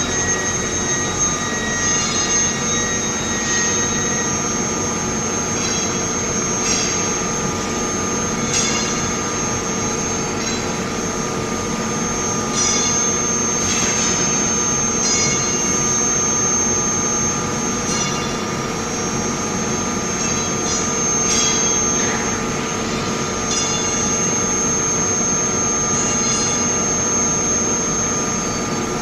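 Induction hardening equipment running: a steady machine hum with a constant high-pitched whine over it, and short clicks every second or two.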